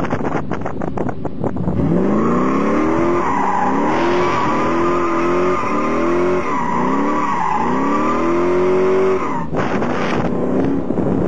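A car doing a burnout: its tyres squeal continuously while the engine revs up again and again in repeated rising surges. About two seconds in the squeal and revving start, and they cut off suddenly near the end.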